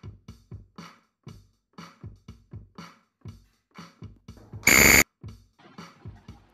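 Quiz countdown music: a quick electronic drum beat, broken about four and a half seconds in by a loud buzzer lasting about a third of a second as the countdown reaches zero. The drum beat carries on quietly after it.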